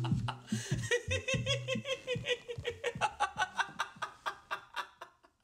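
A man laughing hard: a long run of rapid, even 'ha' pulses that grows fainter and dies away just before the end.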